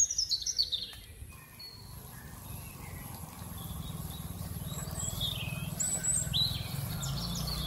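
Small birds chirping: a quick run of high chirps falling in pitch in the first second, then scattered chirps, over a low rumble that grows louder.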